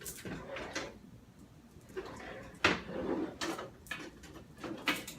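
Scattered light knocks and short scrapes of kitchen utensils and cookware being handled on a counter while a peeled carrot is readied for shredding.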